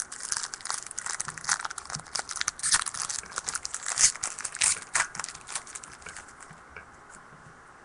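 Trading cards being handled and flipped through: a run of crisp rustles and flicks of card stock sliding over card stock, thinning out about six seconds in.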